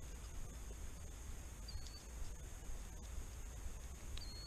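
Faint outdoor ambience: a steady low rumble with three short, high chirps about two seconds apart, near the start, in the middle and near the end.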